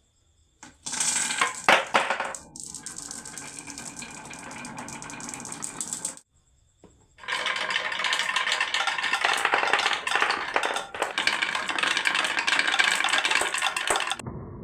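Marbles rolling and clattering down a marble run track, a dense continuous rattle of many small hard clicks, in two long stretches with a short break near the middle.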